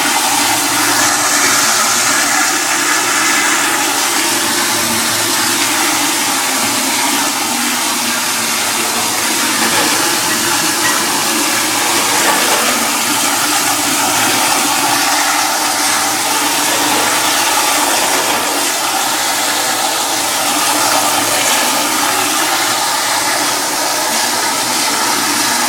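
Toilet flushing continuously without shutting off, a steady loud rush of water that never stops.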